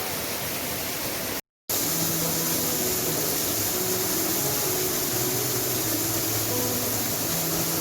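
Steady rushing of a waterfall, broken by a brief silent cut about a second and a half in. After the cut, soft music with held notes plays faintly under the water noise.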